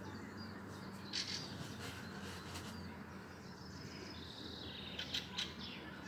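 Songbird calling: short sharp chirps about a second in and again around two and a half seconds, a thin drawn-out whistle in the middle, and a quick pair of chirps near the end.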